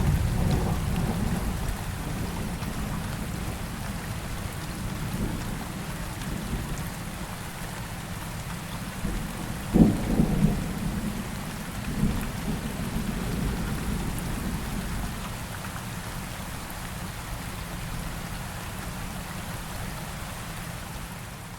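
Steady heavy rain with thunder: a low rolling rumble that fades over the first few seconds, a sharp thunderclap about ten seconds in, and a smaller one about two seconds later.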